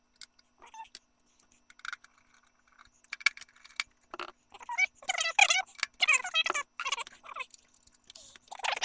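Fast-forwarded audio of hands working on a DEC 3000 pedestal computer's case: quick jangling clinks and rattles of metal parts, mixed with snatches of high-pitched, sped-up chattering voice.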